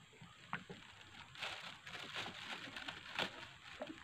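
Close handling noise: scattered small clicks, then a denser run of rustling and clicking from about a second and a half in until just after three seconds.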